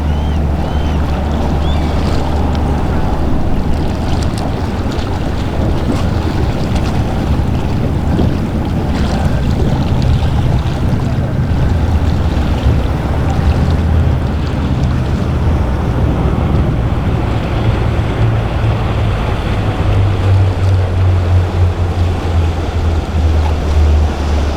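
Motor yacht's engines running with a steady low rumble, mixed with the rush of waves and wind on the microphone; the rumble grows stronger in the last few seconds.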